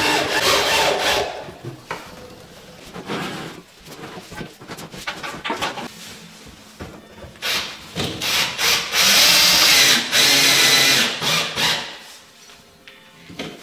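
Cordless drill-driver driving screws to fix a built-in dishwasher under the worktop. It runs in two spells: briefly at the start, then longer from about seven and a half to eleven seconds. Between them come scattered clicks and knocks of handling.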